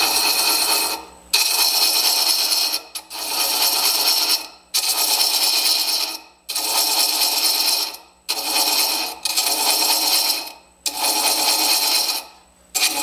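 Hand thread chaser cutting an internal thread into an end-grain wooden recess turning slowly on a wood lathe, the chaser following an established thread to deepen it. About eight scraping cutting strokes in a row, each starting suddenly and trailing off, with short gaps between.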